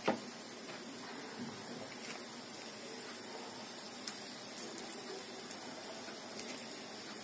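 Lentil fritters sizzling steadily in hot oil in a pan, with a few faint crackles. A single sharp click comes right at the start.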